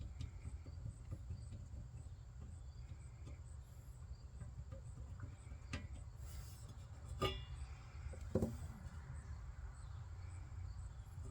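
Quiet workshop room tone: a steady low hum, with a few light taps and clicks in the second half.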